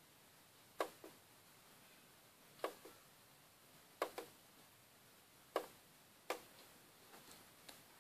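Sharp clicks, mostly in close pairs, every one to two seconds over a faint hiss, with two weaker clicks near the end.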